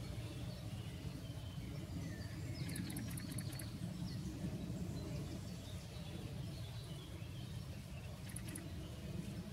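Steady low outdoor background rumble with faint bird calls: a few chirps and a rapid high ticking trill about three seconds in, and another short high trill near the end.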